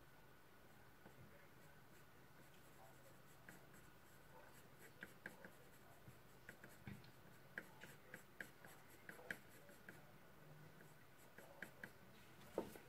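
Pencil drawing on paper: faint, short scratching strokes that begin a few seconds in and come more often toward the end.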